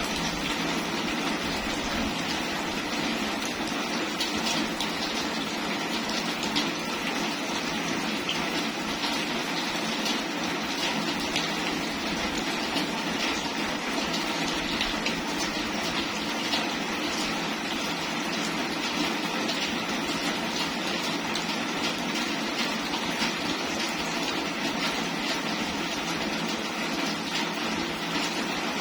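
Steady rain falling, a dense patter of drops over an even hiss that does not let up.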